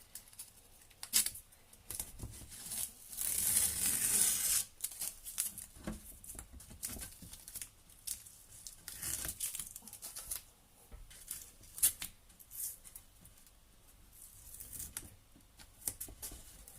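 Masking tape being peeled off the edges of a painting: a run of short ripping pulls and ticks, the longest and loudest about three to five seconds in.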